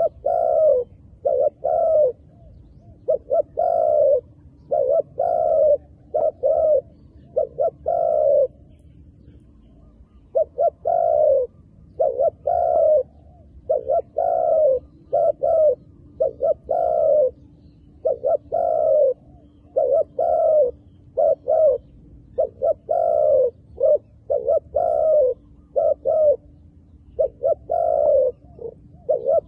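Spotted dove cooing: phrase after phrase of short, arching coos in quick series, with a brief pause about nine seconds in.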